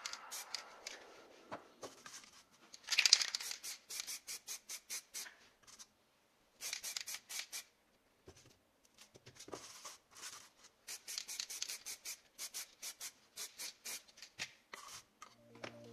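Runs of quick, crisp snipping or clicking from hand work, several strokes a second in short bursts with brief pauses, the loudest cluster about three seconds in.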